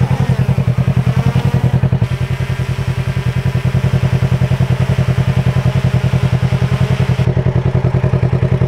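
Polaris RZR side-by-side engine running steadily up close, a loud, low, even throb pulsing about nine times a second.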